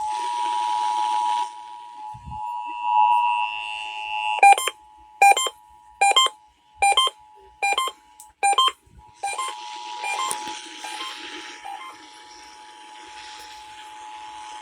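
Emergency Alert System two-tone attention signal: a steady pair of tones sounding together, growing fainter in its second half. A run of about seven short, loud beeps, a little under a second apart, cuts across it in the middle.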